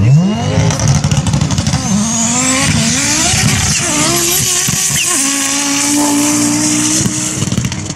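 Five-cylinder engine of a 1300 hp Audi race car launching from the start line at full throttle. It rises sharply in pitch, climbs through several quick gear changes with short drops between them, then holds a steady high note as the car pulls away.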